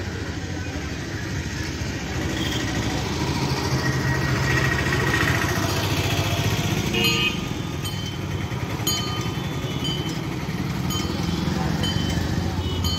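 Road traffic with motorcycle engines running and passing, a steady low engine noise throughout. From about seven seconds in, short high tones sound now and then over it.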